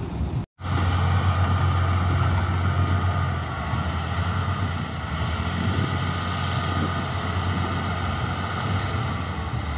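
Heavy diesel construction machinery running steadily: a low, even engine drone with a faint whine above it, after a brief dropout about half a second in.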